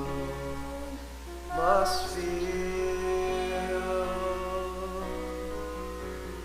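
Music: a slow song's closing bars. A sung note rises in about one and a half seconds in and is held over sustained accompaniment, slowly fading.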